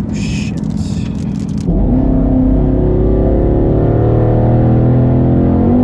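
Twin-turbocharged 5.0 L V8 of a 2019 Ford Mustang GT on E85 going to full throttle about a second and a half in, heard from inside the cabin. The engine note climbs steadily, dips near the end and climbs again. The rear tyres are spinning on the wet road.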